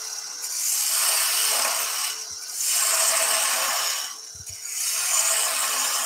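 Spindle gouge cutting into a wooden spindle blank spinning on a wood lathe: three cutting passes, each about a second and a half long, with short pauses between them. The lathe's steady hum runs underneath.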